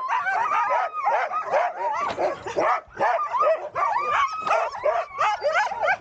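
Many sled dogs barking, yipping and whining over one another in a dense, unbroken chorus of short rising-and-falling calls.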